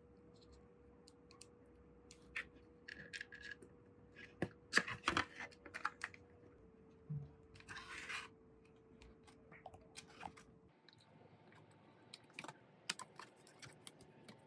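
Irregular clicks, taps and short scraping rattles of small hard parts being handled, over a faint steady hum.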